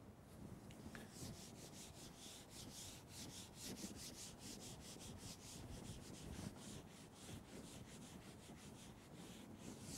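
Whiteboard eraser wiping a whiteboard in quick back-and-forth strokes, about three a second: a faint, soft rubbing.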